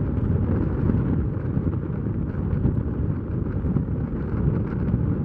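Wind buffeting the microphone in a steady, fluctuating low rumble, with the engines of a taxiing Boeing 767-200F freighter running underneath.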